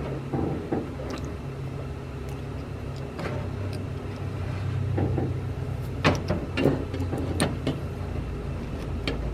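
Scattered clicks, knocks and rattles of a heater control unit and its cable being worked into position behind the dash, over a steady low hum.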